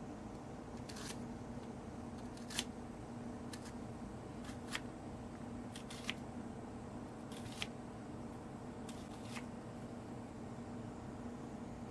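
Kitchen knife cutting an onion on a plastic cutting board: about ten short, crisp cuts and taps at uneven intervals. A faint steady hum runs beneath.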